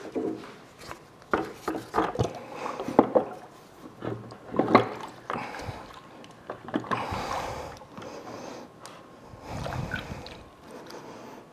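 Clunks, knocks and scrapes of a heavy bench vise's parts being handled on a countertop and lowered into a plastic bucket of degreaser solution. Near the end comes the rattle of the bucket's lid being worked onto the rim.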